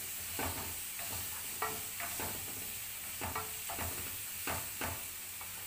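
Wooden spatula scraping and knocking in a stone-effect frying pan as diced onion and red and green bell peppers are stirred, several strokes a second, over a steady sizzle of frying vegetables.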